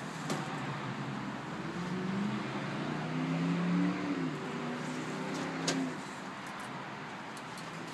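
A motor vehicle engine runs nearby, swelling over a few seconds and then dropping in pitch and fading, like a car going past. A single sharp click comes near the end, over a steady background hiss.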